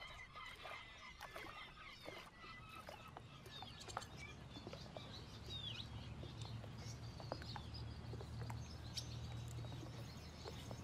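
Faint outdoor ambience: scattered small clicks and a few short chirps over a low, steady rumble that grows a little louder in the middle.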